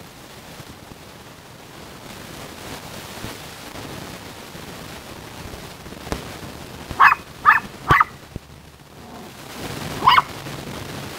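Small dog barking: three quick, sharp barks about seven seconds in, then one more near the end.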